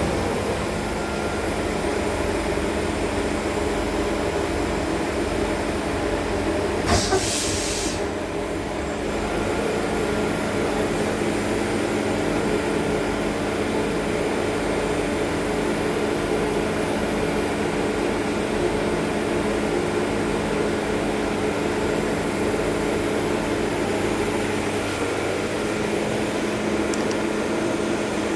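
Schaublin TM-65Y CNC lathe running, a steady machine hum with steady tones, while it machines a steel steering rack piston. A brief hiss sounds about seven seconds in.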